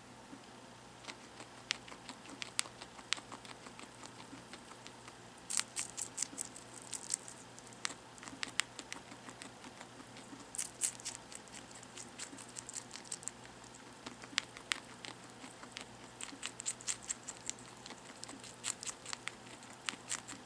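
Guinea pig chewing a strawberry, its bites and chews making quick runs of small wet clicks with short pauses between.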